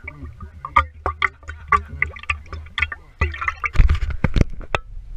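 Whiskey glugging and gurgling out of a glass bottle as someone drinks straight from it, picked up very close by a camera mounted on the bottle. About four seconds in there is a flurry of loud knocks and rubbing as a hand grips the bottle over the camera.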